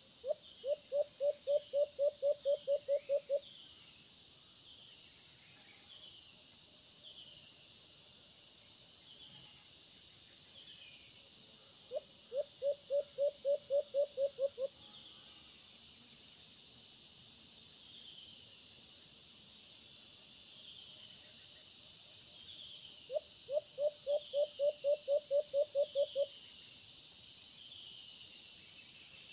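Caged decoy alimukon dove cooing: three series of about a dozen rapid, evenly spaced hooting notes, roughly ten seconds apart. A steady high insect drone and repeated short falling chirps run underneath.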